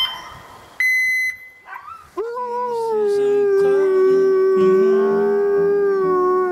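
A couple of short electronic beeps, then a husky howling: one long howl that rises as it starts and then holds steady until near the end.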